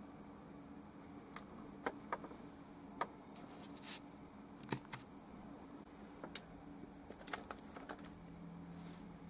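About a dozen light, sharp clicks and taps at uneven intervals, like small hard objects being handled, over a faint steady low hum.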